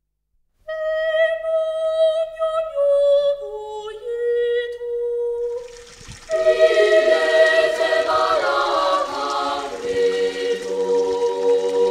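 Background vocal music: a single melody line of slow held notes, then about six seconds in a full choir of voices comes in singing together.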